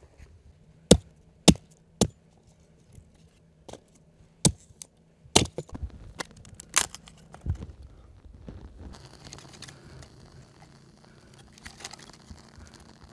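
A series of sharp, irregularly spaced knocks or clacks, about seven in all, the loudest near the start, followed by faint rustling and scraping.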